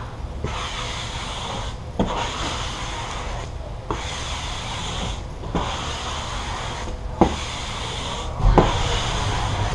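A squeegee rubbing matte black vinyl wrap film down onto a car hood in repeated strokes. The scraping comes in about six passes, each roughly a second and a half long, with brief pauses between them and a light tap as each new stroke begins.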